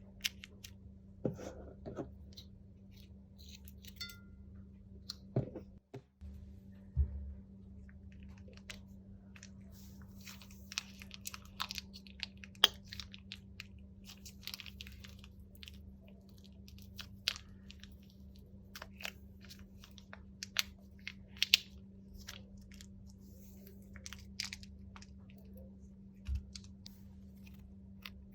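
Crunchy slime being worked by hand, with irregular crackles and sharp pops throughout. A steady low hum runs beneath.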